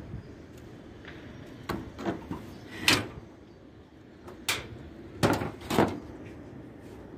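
Corrugated metal roof sheets knocking and clanking at irregular moments, about six knocks in all, the loudest about three seconds in and two close together between five and six seconds in.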